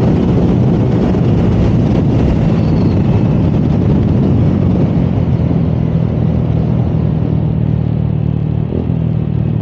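Honda Click 125i scooter's single-cylinder engine running hard and steady at road speed, with wind noise on the camera. It is a stress-test run after the loose crankshaft nut on the drive face was re-tightened.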